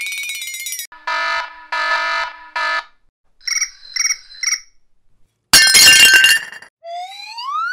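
A string of cartoon sound effects. A wavering high whistle tone cuts off, then come three short buzzer blasts and three quick bell dings. A loud crash follows, the loudest sound here, and then a rising slide-whistle glide near the end.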